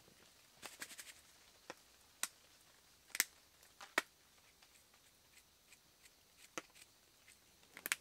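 Scattered small clicks and taps of seasoning bottles and their caps being handled and opened, with a quick run of clicks about a second in and two louder taps around three and four seconds in.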